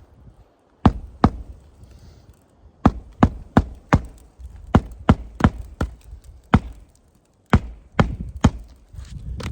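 Hammer driving roofing nails into asphalt shingles: about fourteen sharp strikes, in quick runs of two to four blows with short pauses between nails.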